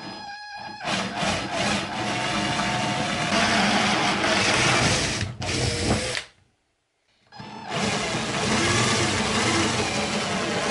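Worx 20V cordless drill boring through a metal license-plate bracket: the motor spins up, then runs steadily as the bit cuts the metal. It breaks off for about a second past halfway, then drills again.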